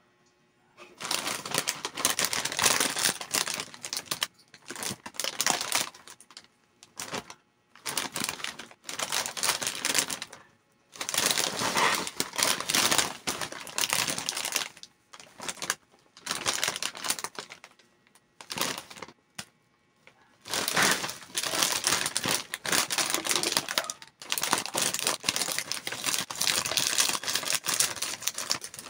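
A sealed plastic snack bag of Jack 'n Jill Kropek ni Mang Juan crackers crinkling as hands handle and turn it, in repeated bursts of a few seconds with short pauses between. Near the end, scissors cut the bag open along its top.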